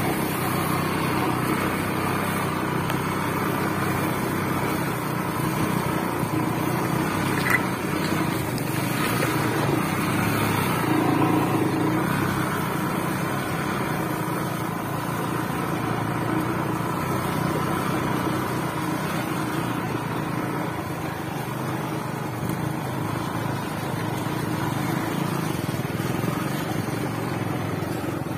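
Small motorcycle engine running steadily as the bike rides along a bumpy grass-and-mud track, heard from on the bike.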